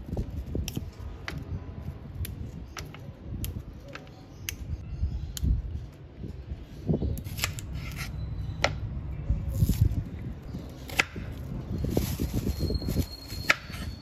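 Kitchen knife slicing a red onion on a wooden cutting board: irregular sharp taps of the blade striking the board, over a low steady rumble.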